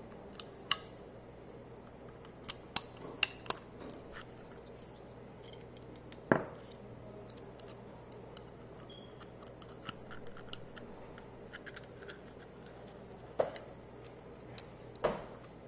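Scattered clicks and taps of a polymer pistol magazine and its plastic grip-extension parts being handled, about ten in all, with the sharpest knock about six seconds in.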